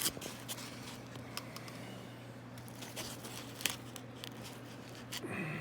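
Faint scattered clicks and light crinkling of pins being handled and lined up by hand, over a steady low hum.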